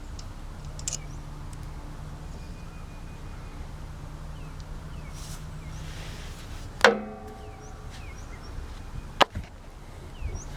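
Metal parts and tools clinking as an ignition coil is removed from a small engine: one sharp ringing clink about seven seconds in and a shorter knock about two seconds later, over a steady low hum.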